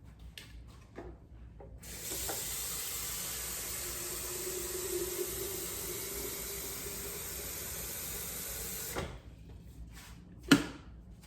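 Tap water running into a large electric kettle for about seven seconds, then shut off. A single sharp knock follows near the end.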